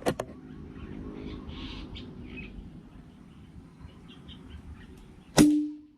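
A sharp knock, then about five seconds later a loud clang that rings briefly and dies away. Faint bird chirps can be heard in between.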